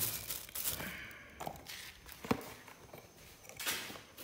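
A plastic bag rustling briefly, then footsteps and a few small knocks on a concrete floor, with one sharp knock about halfway through.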